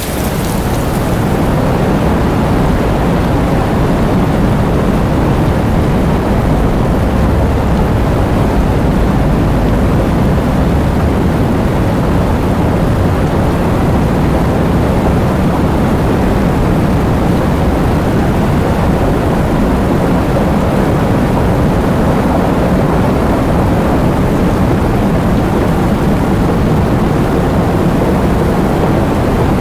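Heavy rain falling steadily: a dense, even rush of water noise, deep rather than hissy, fading in over about the first second.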